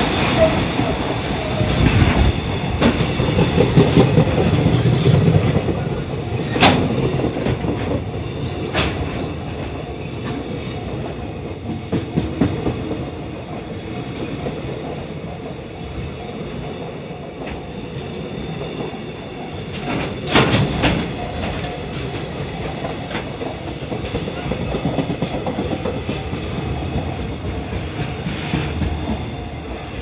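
A long freight train of container flat wagons rolling past at close range. Its wheels clatter over the rail joints in a steady clickety-clack, with a few sharp clanks. The passing is loudest in the first few seconds.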